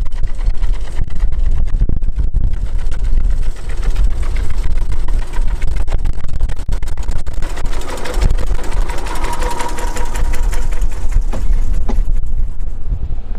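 Small narrow-gauge diesel locomotive's engine chugging as it runs past close by, loudest about eight to eleven seconds in with a steady whine on top, then easing as it moves away.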